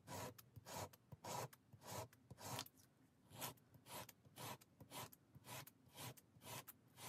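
A small square wooden dowel piece rubbed in short, faint swipes across sandpaper, about two strokes a second, with a short pause about three seconds in. The swipes are tapering the end of a miniature table-leg piece.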